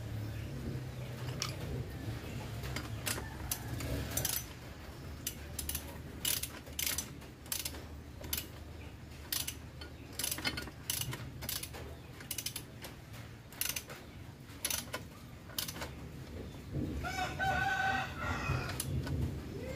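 Sharp, irregularly spaced metal clicks of a socket wrench being worked on a bolt. About seventeen seconds in, a rooster crows for about two seconds.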